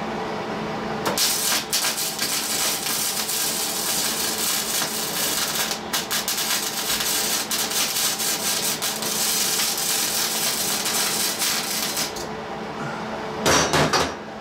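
Wire-feed MIG welder arc crackling and sizzling as a bead is run on square steel tubing, with a brief break about five seconds in. A steady hum comes before the arc strikes about a second in, and a short loud knock comes near the end.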